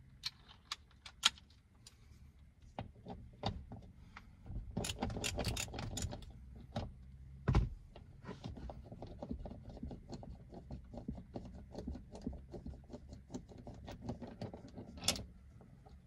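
Ratchet wrench with a socket clicking in quick runs as it turns out the rear seat's mounting bolts, with scattered metallic clinks and a single heavier knock about halfway through.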